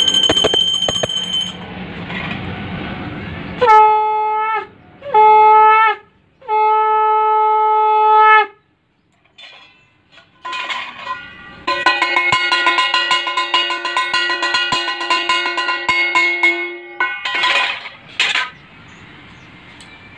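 Conch shell (shankha) blown in three blasts, each swooping up into a steady note, the third the longest. From about 12 s a longer conch blast sounds together with rapid clanging of a small brass puja hand bell.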